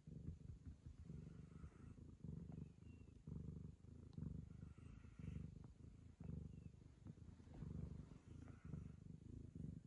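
A Ragamuffin cat purring, a low, faint rumble that pulses in and out in an uneven rhythm.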